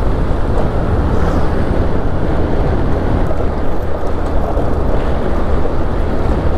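Wind buffeting the microphone over the steady running of a vehicle travelling along a muddy dirt road, a constant low rumble with no clear breaks.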